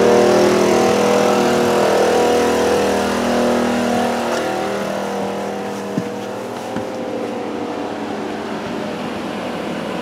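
Small pull-start portable generator running steadily with an even engine hum that grows gradually fainter. Two light knocks come about six and seven seconds in.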